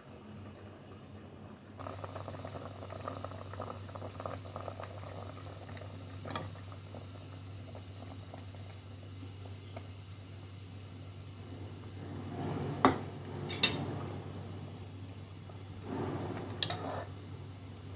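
Tomato-and-egg broth simmering and bubbling in a pot over a steady low hum, as beaten egg is poured in and stirred with a metal spoon. A few sharp clinks of metal against the pot, the two loudest close together about thirteen seconds in.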